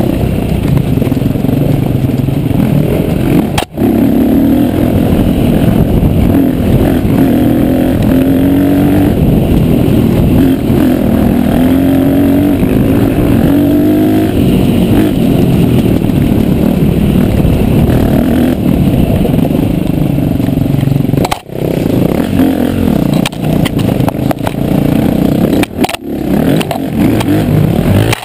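Dirt bike engine heard close up from the riding bike itself, pitch rising and falling as the throttle opens and eases off over rough trail. The sound cuts out sharply for a moment twice, and the throttle grows choppier toward the end.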